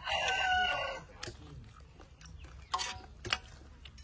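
A rooster crowing, its held call ending about a second in. Then a few scattered sharp clicks and knocks, as of a metal spoon against the wok.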